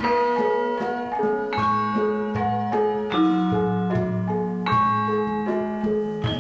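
Central Javanese gamelan ensemble playing: struck bronze metallophones ringing in a flowing melody over a sustained low tone. A new group of notes is struck about every one and a half seconds.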